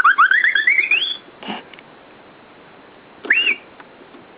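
Electronic sound effects from a VTech baby musical toy: a fast run of chirps climbing steadily in pitch for about a second, a soft knock, then one more chirp near the end.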